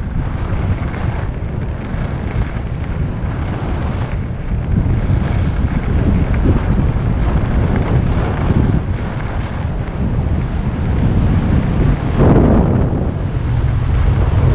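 Wind buffeting an action camera's microphone during a fast downhill run on snow, with the scrape of edges carving packed snow underneath. It swells louder and hissier about twelve seconds in.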